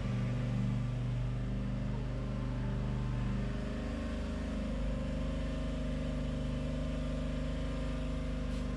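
Steady low machine hum, its tone shifting slightly about four seconds in.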